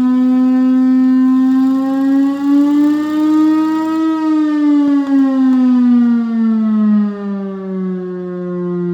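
Chrysler air raid siren, the Hemi V8-driven Chrysler Bell Victory siren, sounding a loud, low wail. The pitch rises slowly for about four seconds, then falls over the next four and levels off at a lower tone.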